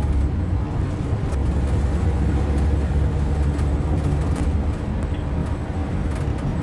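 Steady low engine and road rumble of a moving bus heard from inside the passenger cabin, with a few light rattles.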